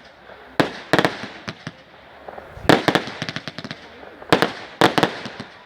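Fireworks exploding overhead: sharp bangs about every second or two, some in quick pairs, each trailing off into echo and crackle.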